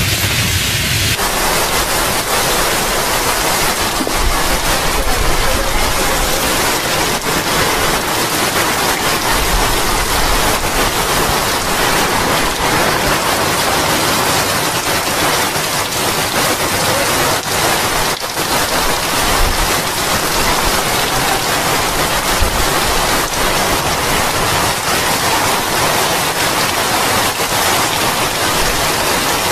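Heavy tropical rain pouring steadily during a thunderstorm, a dense, even hiss.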